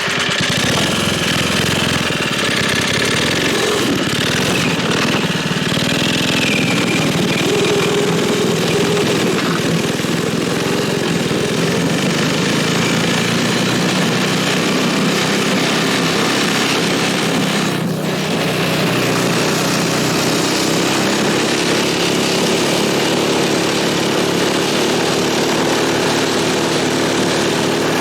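Tecumseh H35 small single-cylinder four-stroke engine of a home-built snowmobile running steadily and loudly, its pitch shifting a little in the first few seconds, with a brief dip about two-thirds of the way through.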